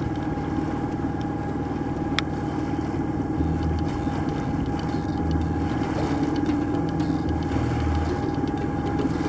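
A sailboat's engine running steadily with a constant drone and hum.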